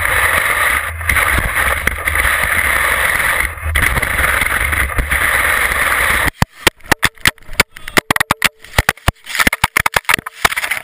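Ski running over snow, heard from a camera mounted on its tip: a steady, loud hiss. About six seconds in, this breaks into a rapid, irregular series of sharp knocks as the GoPro comes off the ski and tumbles across the snow.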